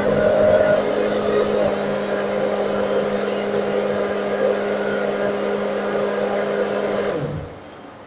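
Hand-held hair dryer running on heat, a steady motor hum over the rush of blown air, now heating again after the repair. It is switched off about seven seconds in and the motor winds down.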